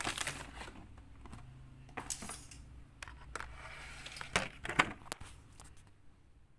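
Handling noise: scattered rustles and knocks with two sharp clicks, loudest about four and a half seconds in, as the phone is moved and turned while filming.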